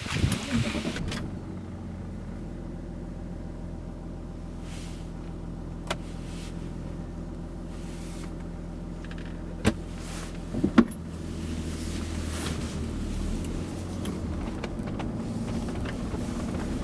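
Opel Omega 2.5 DTI's inline-six turbodiesel idling steadily, with a few sharp clicks about six, ten and eleven seconds in.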